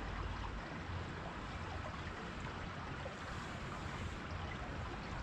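Water of a small waterfall pouring steadily into a pond, an even rushing splash with no breaks.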